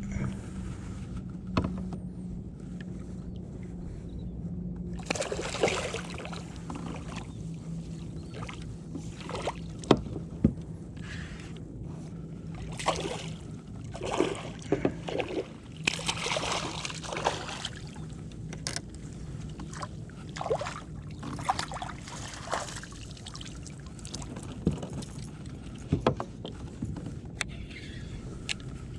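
Water splashing and sloshing in irregular bursts beside a kayak, with sharp knocks and clicks on the hull and tackle, as a foul-hooked redfish is fought and landed. A faint steady low hum runs underneath.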